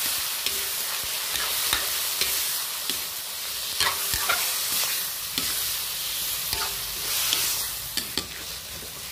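Raw chicken pieces sizzling in hot oil with sautéed garlic, onion and tomato, as a metal spatula stirs them, scraping and knocking against the pan now and then. The chicken is being seared (sangkutsa) before any water goes in.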